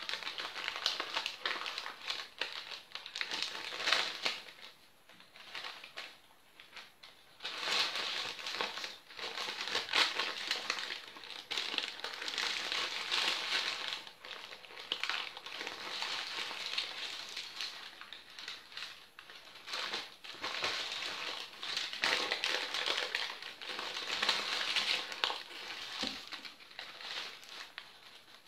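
Sheets of baking paper crinkling and rustling in the hands as a crêpe roll is rolled up and wrapped in them, loudening and easing off in uneven spells.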